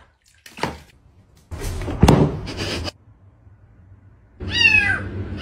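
Water sloshing and splashing in a plastic basin as a cat steps into it, with a sharp knock about two seconds in. Near the end a cat meows, a falling cry.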